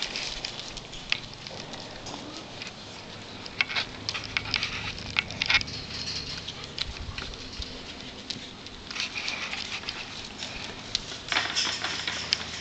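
Footsteps crunching over wood-chip ground, an irregular crackling, busiest about four to six seconds in and again near the end.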